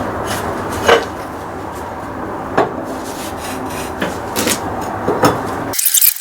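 Tools and a bearing press being worked while a new front wheel bearing is pressed into the knuckle: scraping and rubbing with a few sharp metallic knocks over a steady shop hum. Near the end it cuts abruptly to a run of quick sharp clicks.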